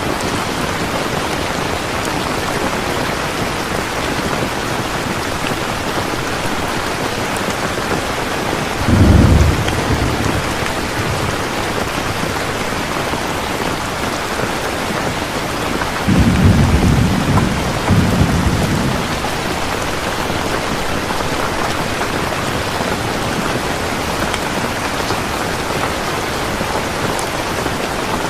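Steady heavy rain falling, with deep rolls of thunder rumbling twice: a short one about a third of the way in and a longer, double one just past the middle.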